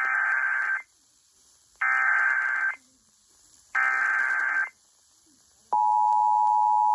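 Emergency Alert System SAME header: three short bursts of warbling data tones, each just under a second, with about a second of silence between them. Near the end the steady two-tone EAS attention signal starts, an unchanging dual tone that announces the warning.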